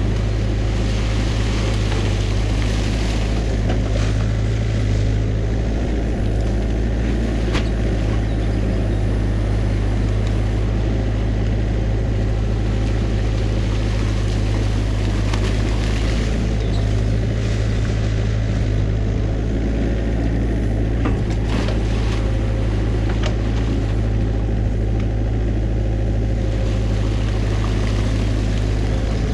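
New Holland mini excavator's diesel engine running steadily as the arm digs, with a few short knocks and scrapes as the bucket tears sticks and mud out of a beaver dam.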